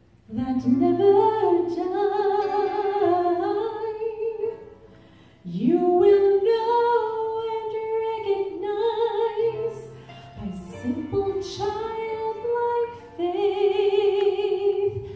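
A woman singing a slow song into a microphone, her voice wavering with vibrato, in long phrases with brief breaks for breath.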